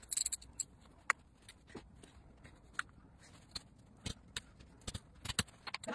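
Scattered small clicks and taps, about a dozen over a few seconds, from rhinestones and a cotton swab being handled against the jewelled jawbone and its cardboard work surface.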